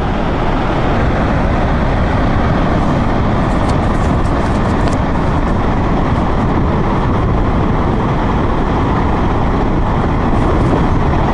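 Muddy floodwater pouring through a dam's spillway gates: a loud, steady rushing of water.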